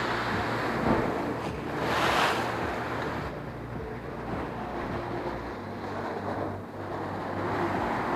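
Sea surf washing ashore, one wave swelling loudest about two seconds in, with wind rumbling on the microphone.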